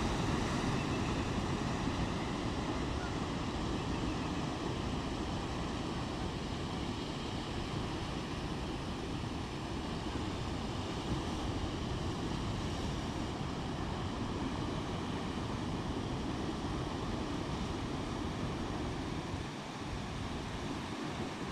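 Rough sea: wind and waves making a steady rushing noise with a low rumble underneath.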